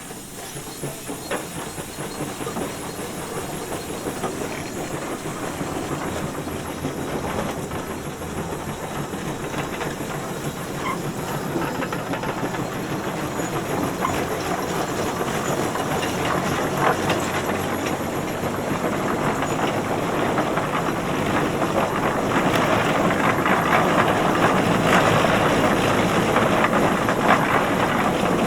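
Tractor running and drawing nearer, its engine noise and scattered clanking growing steadily louder.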